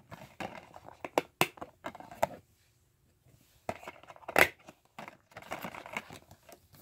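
Hands handling a clear plastic disc case and its paper fold-out booklet: a string of sharp plastic clicks and paper rustling, with a pause about two and a half seconds in and the loudest click about four and a half seconds in.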